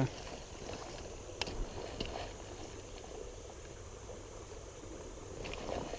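River water running steadily around a wader, with a couple of faint clicks.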